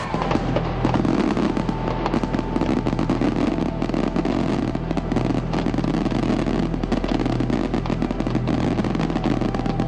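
Fireworks going off in a dense, unbroken run of rapid bangs and crackles.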